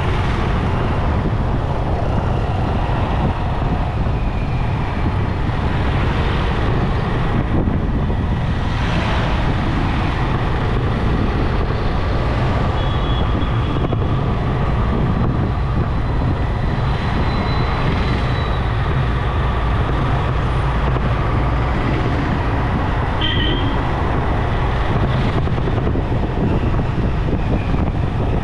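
Steady road noise from a moving motorcycle in city traffic, with a heavy low rumble. A couple of short high-pitched tones come through, once near the middle and again later.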